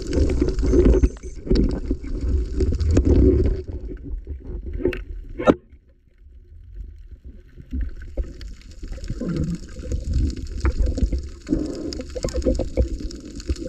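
Water churning and gurgling around an underwater camera as a diver swims, a loud uneven low rumble. There are a couple of sharp clicks about five seconds in, then a brief lull before the churning picks up again.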